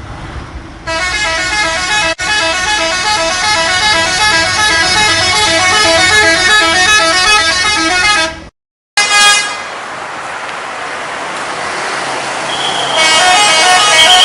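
Indonesian bus "telolet" multi-tone horn playing a fast melody of rapidly alternating notes for several seconds, then cutting off. After a short break comes a rushing noise, and near the end another horn melody starts with a held note.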